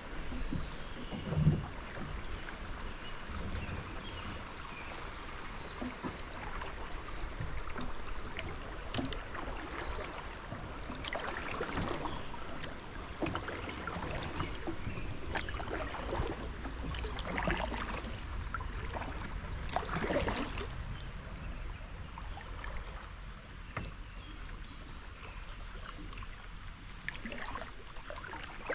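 Kayak paddle blades dipping and splashing in river water with each stroke, over the steady wash of water along the hull.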